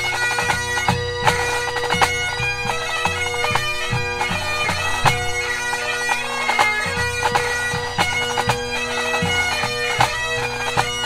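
Highland pipe band playing: Great Highland bagpipes sounding a fast melody over their steady drones, with snare and bass drums beating time, as part of a march, strathspey and reel competition set.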